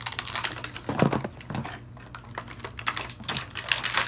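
Stiff plastic blister packaging crackling and clicking as action-figure parts are worked out of their tray, with a few duller low knocks about a second in.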